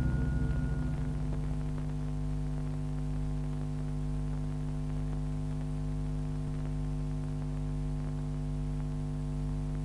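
A steady electrical mains hum, several even tones stacked together, on an old film soundtrack. The last notes of mallet-percussion music ring away in the first second or so.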